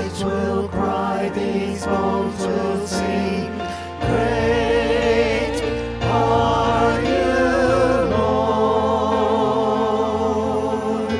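Contemporary worship song performed by a small group of singers with electric keyboard accompaniment. The keyboard plays a rhythmic pattern of separate notes, then about four seconds in it moves into long held chords under the singing.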